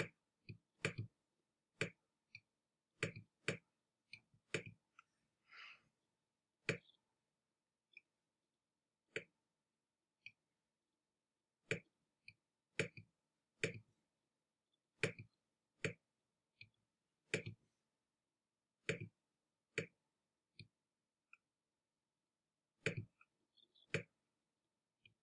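Computer mouse clicking: sharp single clicks and quick double clicks at irregular intervals, with silence between.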